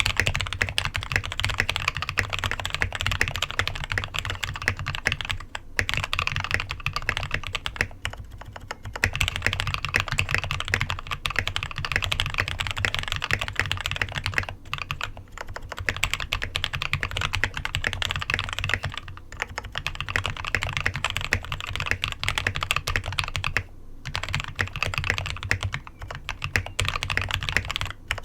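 Royal Kludge RK G68 mechanical keyboard with lubed and filmed Huano red linear switches and foam and tape mods, typed on fast and continuously, with brief pauses every few seconds. Even lubed and filmed, the switches sound scratchy and unpleasant to the owner.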